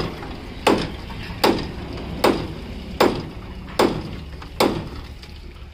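Hammer driving a cold chisel into the rusted sheet steel of an old Isuzu truck cabin: six sharp metallic blows a little under a second apart, each with a short ring.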